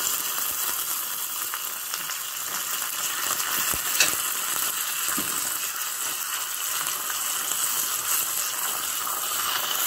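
Curry leaves and green chillies sizzling steadily in hot oil with mustard seeds and cumin in a small saucepan: a tadka (baghar) being tempered. One sharp click about four seconds in.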